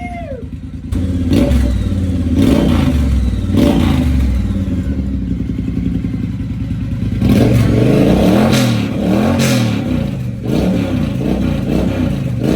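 2020 Triumph Bobber's parallel-twin engine running through a newly fitted British Customs turn-out exhaust. It idles between sharp throttle blips in the first few seconds, then is revved up and down several times about seven seconds in.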